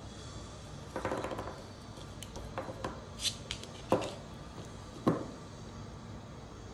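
Handling noises from a metal airsoft V3 gearbox shell on a tabletop: a short rattle about a second in, a few light clicks, then two sharp knocks about a second apart.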